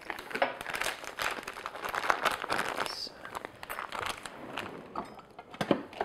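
Plastic piping bag filled with chocolate mousse crinkling and rustling as it is handled and twisted, with scattered small clicks and taps.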